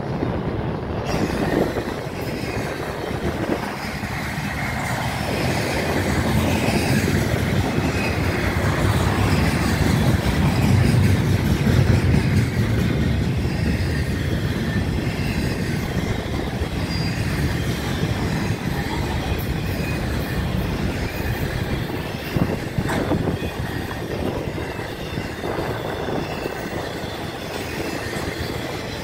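Freight cars of an intermodal train rolling past, double-stack container cars and then trailers on flatcars: steel wheels rumbling steadily on the rails, with a few sharp clacks over the rail joints about three-quarters of the way through.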